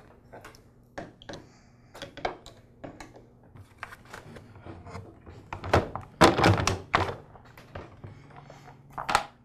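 Hard plastic clicks and knocks from a Troy-Bilt TB130 mower's front axle being pried out of its plastic retaining tabs with split ring pliers and a screwdriver. A run of louder knocks comes a little past halfway as the front wheel-and-axle assembly is worked free and handled.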